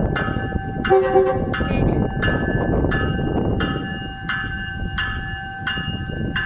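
A bell ringing steadily, about one and a half strokes a second, over the low rumble of a Metrolink commuter train, with one short toot of the train's horn about a second in.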